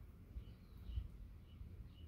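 Quiet outdoor ambience: a low rumble of wind on the microphone, with a small bird chirping faintly about four times.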